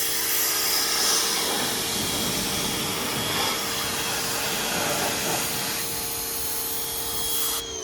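Pressure washer running and spraying water in a steady hissing jet, its motor humming under it. Near the end the spray stops and the motor winds down, its pitch falling.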